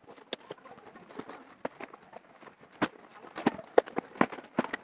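Scissors cutting open a cardboard box wrapped in packing tape: a run of irregular snips, clicks and crackles of blades biting through tape and cardboard.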